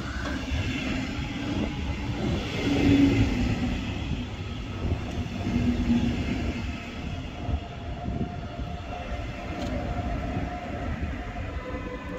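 Train running along the track with a steady rumble of wheels on rails, swelling twice. Over the last few seconds a set of steady tones comes in, one pitch above another, on top of the rumble.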